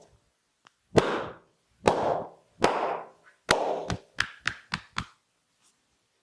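Series of hand slaps on the body during an oil massage: four smacks about a second apart, each with a short decaying tail, then five quicker, shorter slaps about a quarter second apart, stopping about five seconds in.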